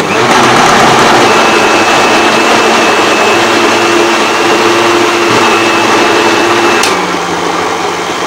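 Countertop blender motor switching on abruptly and running at full speed, churning boiled raw mango pieces into a smooth pulp. About seven seconds in there is a click, and the motor's tone changes as it runs on a little quieter.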